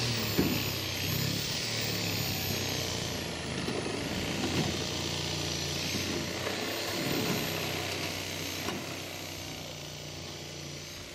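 An engine running steadily, with scattered knocks and clatter over it.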